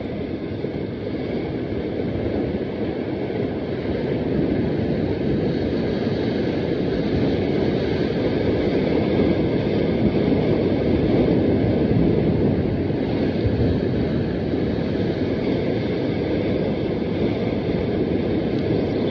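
Steady wind rumbling on the microphone over the wash of sea surf on rocks, growing a little louder about four seconds in.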